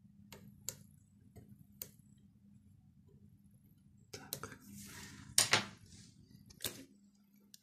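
Small metal spring on a Nikon D7000 shutter unit being pried off its post with gloved fingers: a few faint ticks and a brief rubbing. Then a sharp click about five and a half seconds in as the spring snaps free, and a smaller click a second later.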